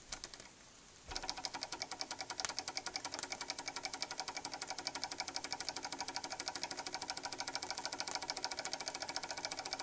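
Small Ross-yoke model Stirling engine running fast, a rapid even mechanical rattle that starts about a second in.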